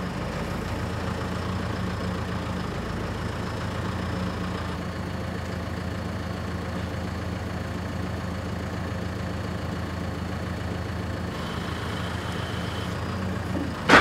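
An engine idling steadily, an even low hum that does not change.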